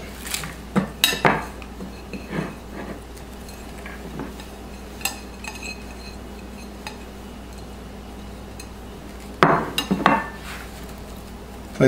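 Scattered clinks and knocks of kitchenware being handled: a ceramic bowl and utensils set against the cutting board and table, a few light taps, then a louder cluster of knocks near the end.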